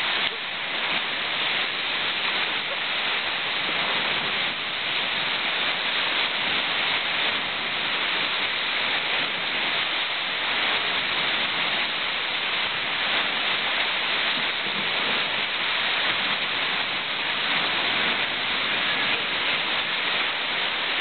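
Steady rushing of wind and water from a boat moving at speed over the sea, with no engine tone or voices standing out.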